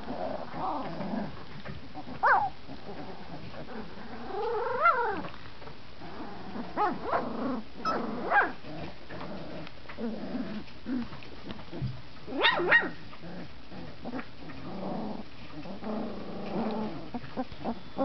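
A litter of 20-day-old puppies playing together, making scattered short high-pitched yips and squeals as they find their voices and learn to bark. A few calls glide up and down, and the loudest comes about twelve and a half seconds in.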